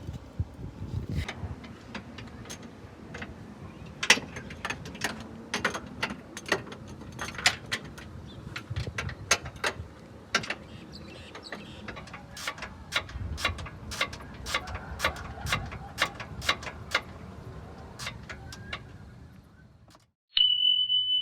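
Metal hand tools clinking and knocking during a car repair: an irregular run of sharp clicks and clanks over a low rumble. Near the end the sound drops out briefly and a short, steady high-pitched beep follows.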